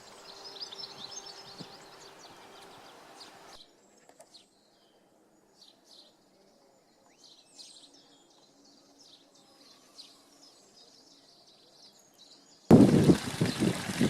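Birds singing and chirping over a steady background hiss; about three and a half seconds in this gives way suddenly to a much quieter stretch with faint, scattered bird calls. Near the end, a loud rush of running water cuts in abruptly.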